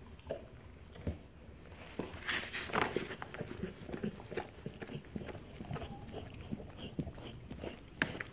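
German shepherd–boxer mix mother dog licking and nuzzling her newborn puppy: an irregular run of short wet licks and smacks, busiest from about two seconds in.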